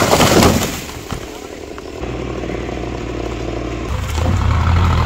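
Chainsaw revving and dropping in pitch in the first half second. After that, a steady low engine drone that grows louder near the end.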